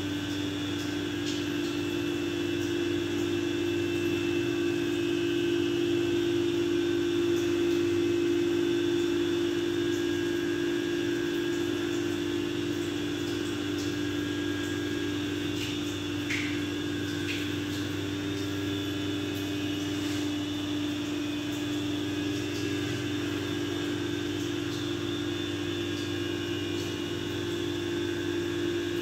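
Steady mechanical hum of a running motor-driven machine, with a few faint clicks about halfway through.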